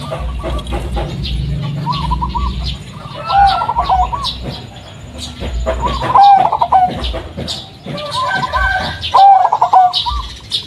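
Zebra dove (perkutut) of the local Blorok Madu type cooing. Its song comes in several phrases of quick rolling notes, separated by short pauses.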